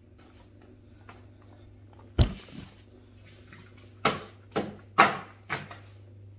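A single sharp knock about two seconds in, then four quick knocks over about a second and a half, each dying away fast: things being handled and set down on a kitchen counter.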